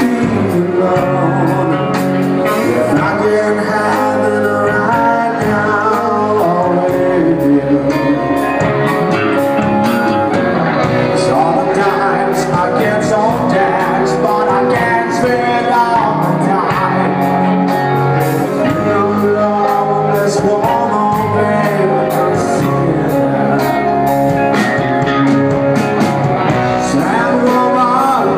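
Rock band playing live: singing into a microphone over electric guitars and bass guitar, with a steady beat.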